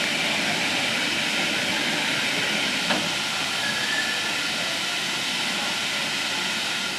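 Steam locomotive standing in the station, letting off steam in a steady, loud hiss.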